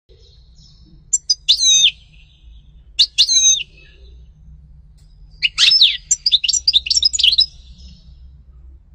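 European goldfinch singing: three bursts of quick, high twittering notes, the last and longest lasting about two seconds.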